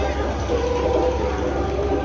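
Crowd hubbub: voices talking nearby over a steady low hum.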